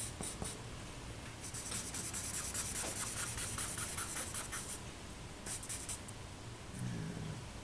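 Stick of charcoal scratching across drawing paper in quick strokes: a few short strokes at first, then a dense run of rapid strokes for about three seconds, and one more brief burst after a pause.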